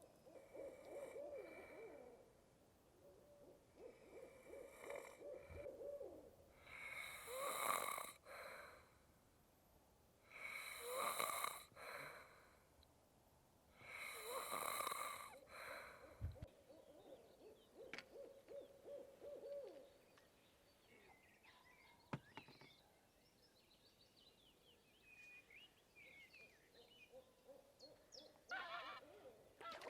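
A man snoring in his sleep: three loud, harsh snores about three and a half seconds apart in the middle, with quieter wavering breaths between and around them.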